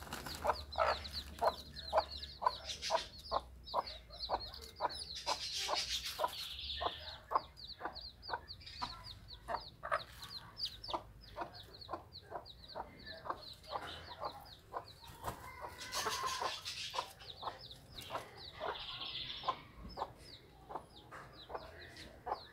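A mother hen clucking in a quick, steady run of short clucks, about three or four a second, with her chicks peeping in short high notes. Two brief bursts of hiss-like noise come about six seconds in and again about sixteen seconds in.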